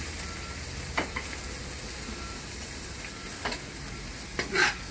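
Coconut milk and sautéed aromatics with shrimp paste sizzling steadily in a nonstick wok. A metal spoon clicks against the pan a few times, about a second in, past halfway and near the end.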